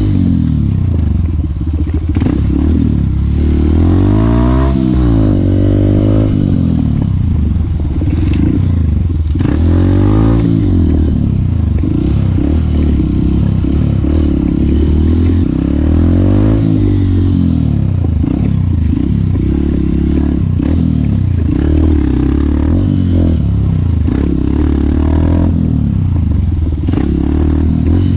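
Honda CRF150 dirt bike's four-stroke single-cylinder engine under way, the revs rising and falling again and again as the rider works the throttle. The bike clatters and rattles over a rough trail.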